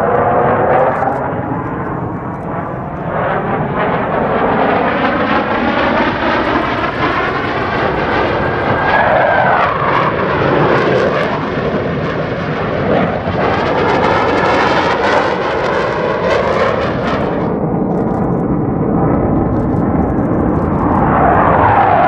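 Blue Angels F/A-18 Super Hornet jets flying past, with continuous loud jet noise. The pitch falls as aircraft pass, about ten seconds in and again near the end.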